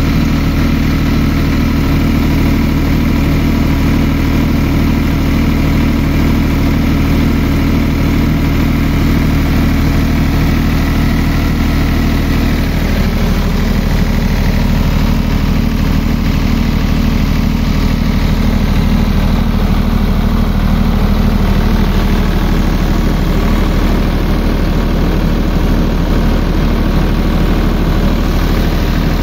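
Millat 25 kW diesel generator set running steadily at constant speed, with a slight shift in tone about halfway through.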